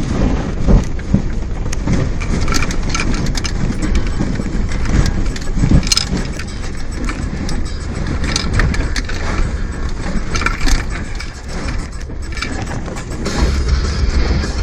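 Toyota WiLL VS car working through deep mud ruts: the engine runs under an irregular clatter of knocks and rattles from the body and suspension, and the low rumble grows heavier near the end.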